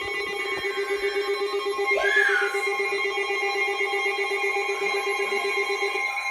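Weather radio alert alarms going off for a severe thunderstorm warning: a fast-warbling, telephone-like ring that stops about six seconds in, over steady higher-pitched alert tones that keep sounding.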